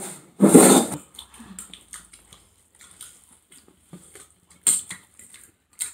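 Quiet sounds of eating by hand from a plate: faint clicks of fingers in the food and soft mouth sounds of chewing. A brief voice-like sound comes about half a second in.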